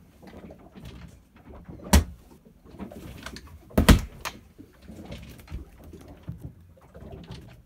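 Two sharp wooden knocks from a boat's cabinet door being handled and shut, the first about two seconds in and a louder double clack just before four seconds, over rustling from the handheld camera.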